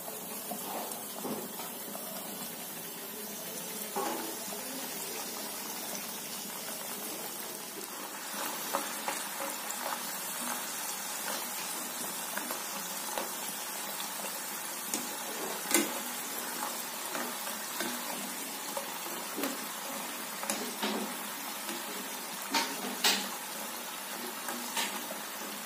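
Papdi (small discs of dough) deep-frying in hot oil: a steady sizzle, with a few sharp clicks as the wire skimmer knocks against the pan, the strongest about four seconds in, around sixteen seconds and near twenty-three seconds.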